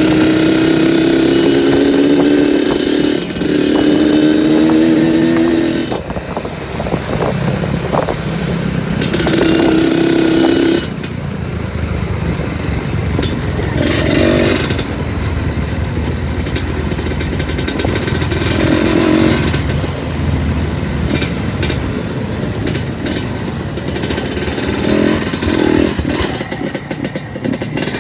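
Two-stroke trail motorcycle engine held at high revs under load for several seconds, easing briefly about three seconds in, then dropping away; it picks up again briefly and then runs at lower revs with short throttle surges.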